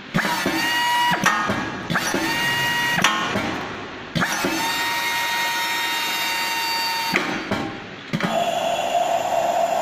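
Automatic welding-torch cleaning station running its cleaning cycle: its reamer motor starts and stops several times with a click or clunk, spinning with a steady whine in runs of one to three seconds, the longest in the middle. About eight seconds in it changes to a different, lower steady whir.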